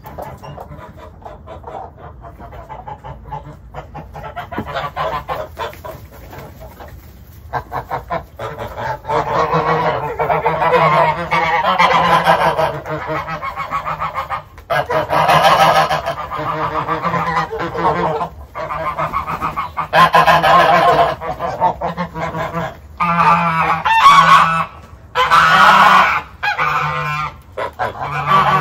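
A flock of domestic geese honking, many calls overlapping. It is fairly quiet at first, then the honking swells about eight seconds in and carries on loud in waves.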